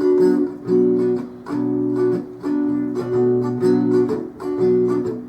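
Guitar intro: strummed chords, a new chord struck about every second and held between.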